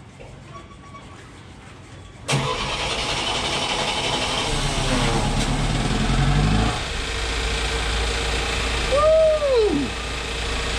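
Westerbeke marine generator engine starting on its newly wired ignition switch. It fires suddenly about two seconds in, comes up to speed over a few seconds, then settles into a steady run.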